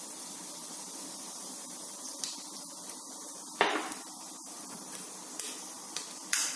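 Cumin seeds spluttering in hot mustard oil in a pressure cooker: a steady sizzle with scattered sharp pops, the loudest about three and a half seconds in.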